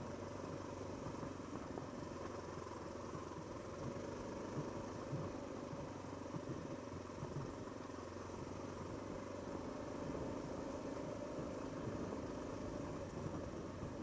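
Stock Honda XR650L's air-cooled single-cylinder four-stroke engine running steadily under way on the trail, with a few soft knocks from the bike over rough ground.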